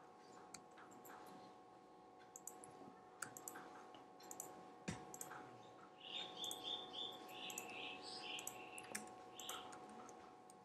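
Faint computer keyboard typing and mouse clicks, with one sharper click about five seconds in and a quick run of short high key ticks from about six to nine seconds.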